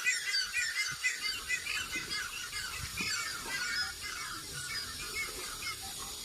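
Many birds chirping at once in quick, overlapping calls, busiest at the start and thinning out after about four seconds.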